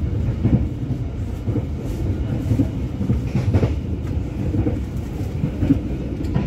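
Passenger train running at speed, heard from inside the carriage: a steady low rumble with a few short clacks from the wheels.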